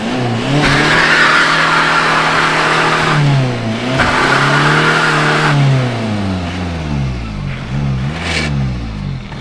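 Car doing a burnout: the engine is held at high revs while the tyres spin and squeal in two long stretches with a short dip between, then the engine revs rise and fall in quick blips near the end.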